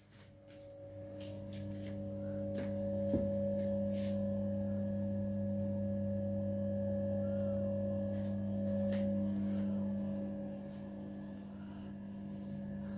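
Bathroom extractor fan humming steadily, a low electric hum with a few even overtones, starting up about a second in. A few sharp clicks and knocks come early, as a door and switch are handled.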